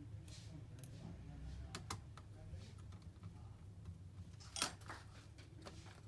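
Scattered small clicks and taps of a screwdriver and fingers handling parts on a bare laptop palmrest's metal and plastic frame, with one sharper click a little past halfway.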